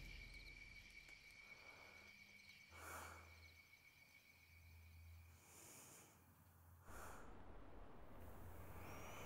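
Near silence: the last of a crash fading out, then a few faint breaths in the dark. Faint room tone comes up near the end, with soft bird chirps.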